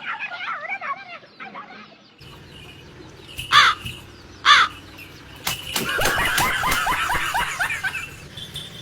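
Loud bird calls: two sharp calls about a second apart, then a quick run of repeated calls.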